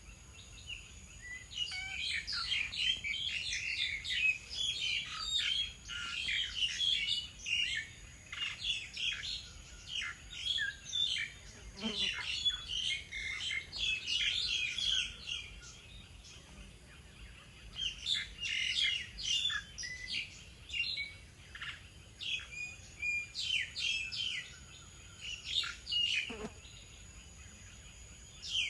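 Small birds chirping and twittering in quick overlapping runs, several calling at once, with short lulls between runs.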